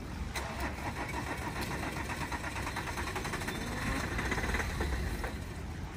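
A vehicle engine running, with a fast, even pulsing that grows louder about four seconds in.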